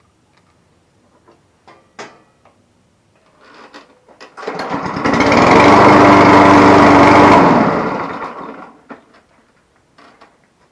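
Husqvarna lawnmower's small engine running after a service. It swells up about four seconds in, runs loud and steady for about three seconds, then dies away.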